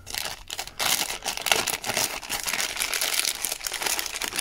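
Clear plastic bag crinkling in a steady run of sharp crackles as it is worked off a handheld radio.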